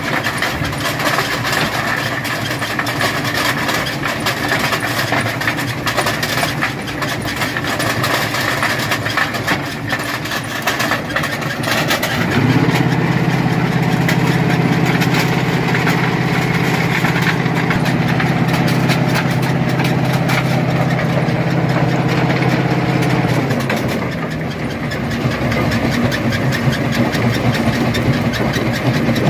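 Rock crusher running with a continuous din of crunching and knocking as stone is broken. About twelve seconds in, a deep engine note rises, holds steady for about eleven seconds, then falls away.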